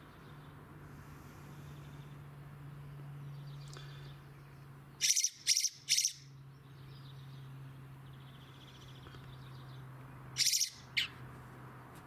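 Fledgling Eurasian blackbird giving short, loud, high-pitched calls: three in quick succession about five seconds in, then two more near the end. A faint steady low hum runs underneath.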